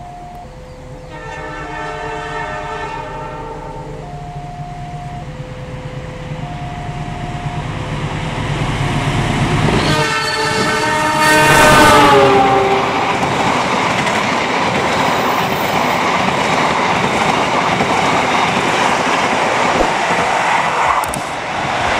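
A KAI CC 201 diesel-electric locomotive sounds its multi-note horn twice, briefly about a second in and louder about ten seconds in, the second blast falling in pitch as it passes. The express then rushes by at speed with steady wheel-on-rail noise from its carriages. Over the first half, a level-crossing alarm alternates between two notes.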